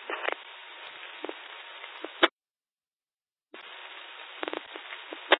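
Police radio scanner channel keyed open with no voice: steady static hiss with scattered clicks, cut off by a short squelch burst about two seconds in. After about a second of dead silence the channel opens again with hiss and clicks, ending in another squelch burst near the end.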